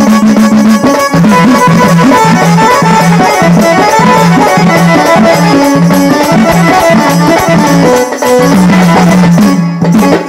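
Instrumental passage of Marathi jagran-gondhal folk music: a held, stepping reed-like melody over steady drum and rattling percussion, without singing.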